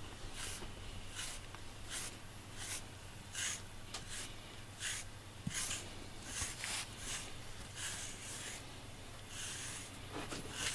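FURminator deshedding tool drawn again and again through a cat's fur in short brushing strokes, about one or two a second, with a longer stroke near the end.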